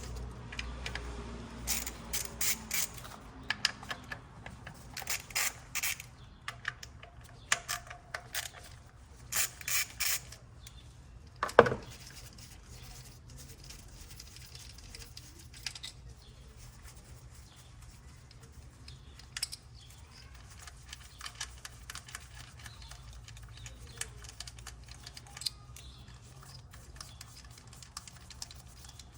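Ratchet with a 10 mm socket clicking in short bursts of quick strokes as the ignition coil bolts are loosened, then one loud metallic clank with a brief ring about twelve seconds in, followed by only scattered faint clicks.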